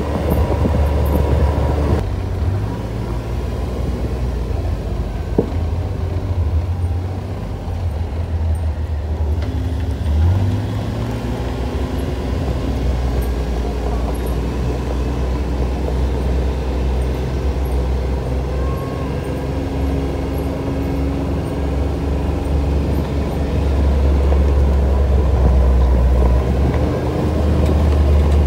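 ATV engine running as the quad rides along a dirt trail, a steady low drone whose pitch shifts up and down with the throttle.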